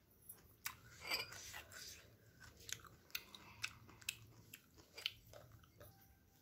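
Faint chewing of steamed chicken momos, with scattered soft mouth clicks and smacks at irregular intervals.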